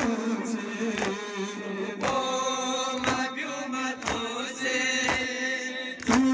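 Crowd of men chanting a Shia mourning chant (noha) together, with a sharp slap about once a second in time with the chant: rhythmic chest-beating (matam).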